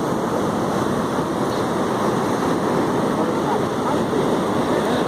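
Steady rush of ocean surf, an even wash of water noise at a constant level.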